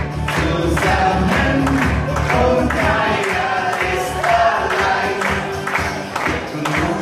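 A group of voices singing together over music with a steady beat.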